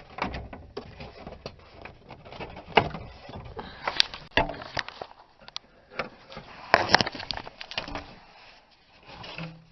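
Plastic dash trim panel being pushed and pried, its wedge-type retaining clips popping loose with a series of sharp clicks and knocks. The loudest snaps come about three, four and seven seconds in.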